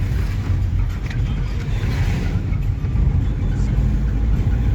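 Steady low rumble of a moving car.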